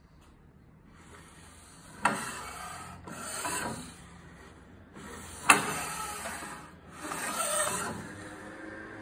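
Mitre gauge and aluminium crosscut fence sliding in the table slot of a Hammer N2-35 bandsaw, twice. Each pass opens with a sharp knock and is followed by about two seconds of rubbing, metal on metal.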